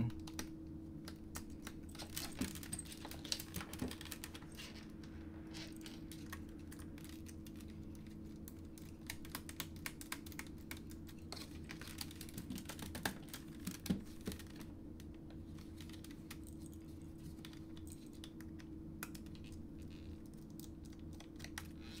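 Scattered light clicks and taps of a laptop's plastic case, small screws and a pry tool being handled on a silicone work mat, over a faint steady hum.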